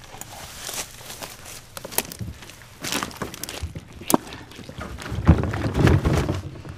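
Footsteps and rustling through dry leaves and brush, with scattered snaps, then the heavier thumps and scrapes of someone climbing into a kayak, loudest about five seconds in.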